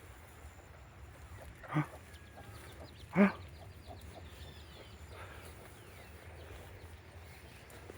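Chickens calling: two short clucks about a second and a half apart, the second louder.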